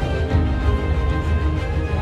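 Background music with long held notes over a strong bass.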